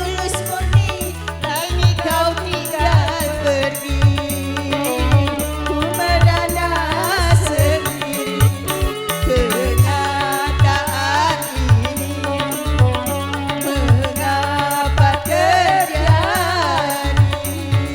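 Dangdut koplo music played by a street orchestra: hand drums beat a steady, driving rhythm under a wavering melodic line with vibrato.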